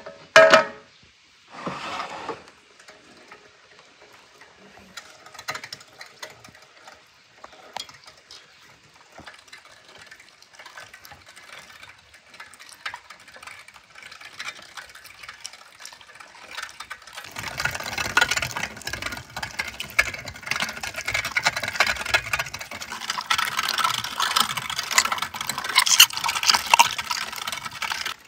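Two loud knocks near the start, then scattered soft clicks; from about two-thirds of the way in, a hand-cranked meat grinder is turned, giving a dense, continuous crackling grind as raw meat and fat are forced through it.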